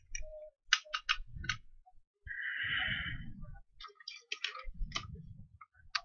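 Small sharp clicks and taps of tools being handled at a microsoldering bench: a quick run of clicks about a second in, a short hiss lasting about a second in the middle, then another run of clicks, with dull handling bumps beneath.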